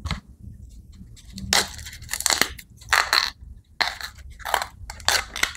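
Tough sheath layers being torn off a fresh whole bamboo shoot by hand: about six short, sharp rips about a second in and onward, with rustling handling between them. The sheath is stiff and hard to peel.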